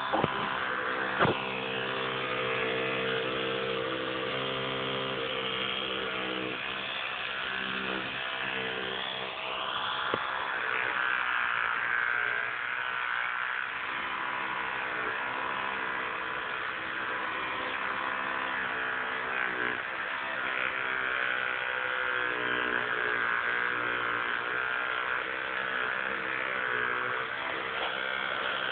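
Battery electric toothbrush running with a steady buzz while small fingers touch its bristle head, its tone wavering now and then. A couple of sharp clicks come about a second in and near the ten-second mark.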